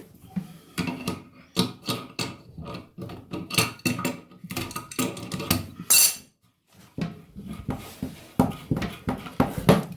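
Irregular metallic clinks and knocks of a spanner working on the water-supply nut and the fill-valve retaining nut under a toilet cistern, with a short pause a little past the middle.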